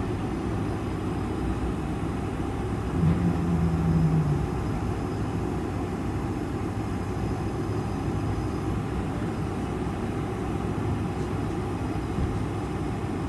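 Cabin noise inside a taxiing Boeing 747-400: a steady low rumble from its GE CF6 engines at taxi power and the rolling airframe. A brief, louder low hum comes in about three seconds in.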